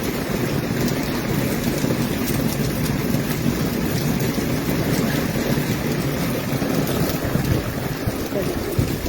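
Heavy thunderstorm rain pouring down steadily, with wind buffeting the microphone.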